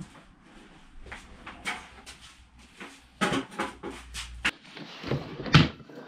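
Handling noise on a wooden workbench: PVC pipe and power cords being moved and set down, a string of irregular knocks, clatter and rustling, the loudest knock about five and a half seconds in.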